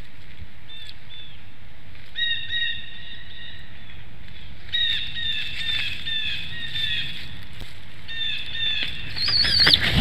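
Bald eagles calling: bouts of high, piping chatter notes, rising into louder, higher warbling calls near the end as a second eagle arrives, with a loud rush of wingbeats as it lands at the very end.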